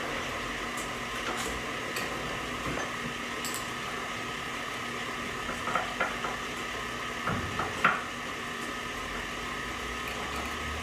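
Wire whisk stirring dry flour, baking soda and salt in a small glass bowl, with a few louder clinks of the whisk against the glass about halfway through, over a steady hum.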